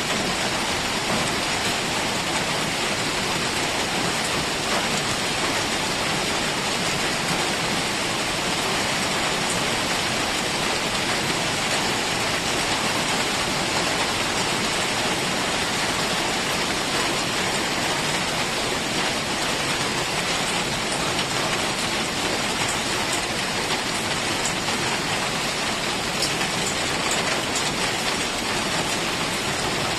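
Heavy rain falling steadily, an even hiss of drops on surfaces with a few sharper drop ticks.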